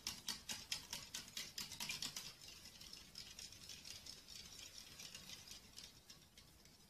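Small wire whisk beating egg and milk in a small ceramic bowl: quick regular clicks of the wires against the bowl, about five a second, turning softer and fainter after about two seconds.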